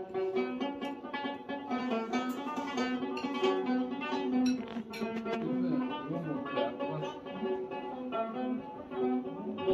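Music on a plucked string instrument: a picked melody over a steady drone.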